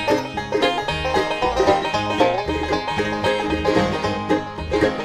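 Bluegrass band playing an instrumental break, with a banjo picking quick runs over guitar and a bass line.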